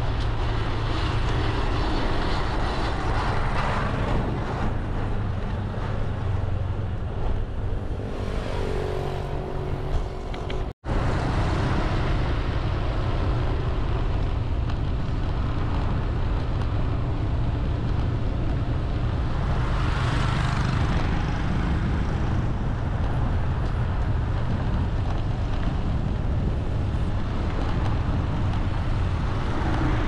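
Road traffic: a steady rumble of passing vehicles, with one vehicle swelling past about twenty seconds in. The sound cuts out for a moment about eleven seconds in.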